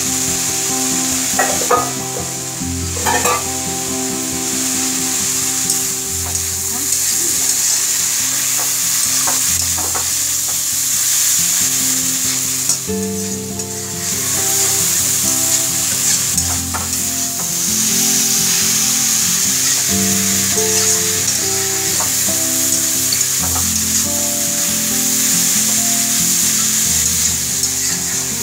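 Shredded cabbage, carrot and onion sizzling in a hot iron kadhai as they are stir-fried, with a steel spatula scraping and clicking against the pan now and then.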